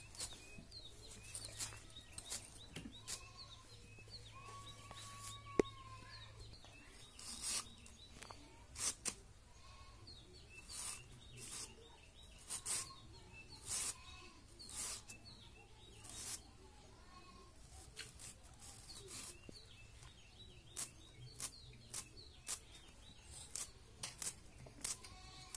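Crisp, irregular slicing strokes of a boti blade cutting through fibrous green banana-plant stalk, roughly one cut a second, with faint bird chirps behind.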